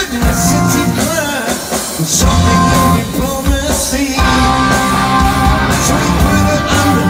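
Rock band playing live at full volume, recorded from the crowd: drums, bass, electric guitar and keyboards in a passage with no sung words, with bending guitar lines early on and held keyboard chords from about halfway.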